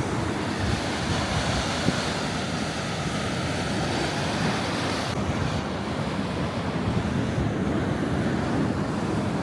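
Ocean surf washing steadily on a rocky shore, with wind buffeting the microphone. Less of the highest sounds comes through from about halfway in.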